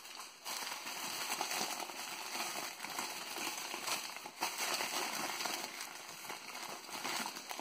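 Crumpled newspaper rustling and crackling continuously as hands pull packing out of a cardboard box and unwrap a small diecast toy car.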